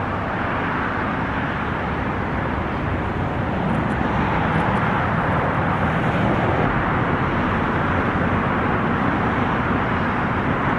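Steady rushing outdoor background noise with no distinct events, the kind of constant hiss of road traffic heard in an open lot, a little louder from about four seconds in.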